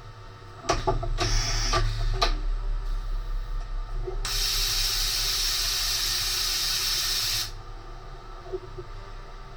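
CNC machining centre starting up with a few clicks and a low hum, then a steady blast of compressed air hissing for about three seconds before cutting off sharply.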